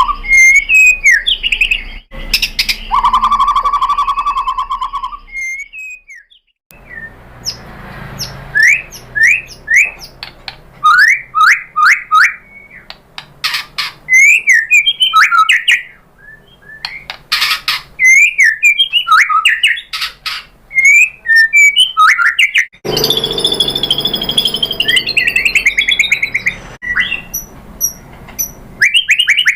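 White-rumped shama (murai batu) singing a loud, varied song. It mixes whistled notes, quick rising notes and sharp clicking calls, with a dense run of notes near the end.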